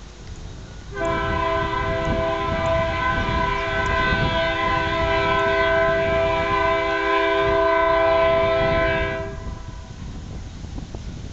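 Chime horn of the CP Rail GP38-2 diesel locomotive leading the train, sounded in one long blast of about eight seconds with several notes together as a chord, over the low rumble of the approaching train.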